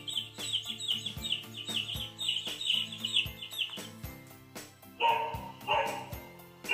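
The speaker of a children's sound book plays recorded chicks cheeping in a quick run of high chirps over a background tune with a steady beat. About five seconds in the chirps give way to a recorded dog barking twice.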